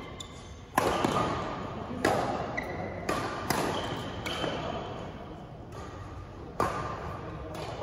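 Badminton rally: rackets strike the shuttlecock with sharp hits about a second apart, each echoing in a large gym hall. Short squeaks of sneakers on the wooden court come between the hits.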